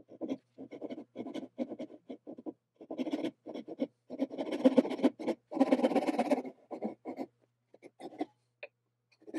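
Japanese pull saw cutting by hand across a red oak tenon, a run of back-and-forth strokes: short ones at first, longer and louder strokes through the middle, then a few light strokes near the end.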